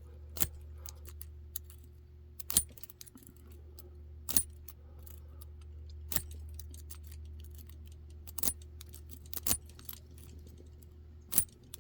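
Metal lock-picking tools clicking and rattling against the pins inside a lock's keyway as they are jiggled: sharp metallic clicks every second or two with fainter ticking between, over a steady low hum.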